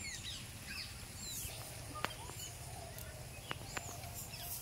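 Small birds chirping, short arched chirps repeated throughout, over a low steady rumble. A few sharp clicks come near the middle.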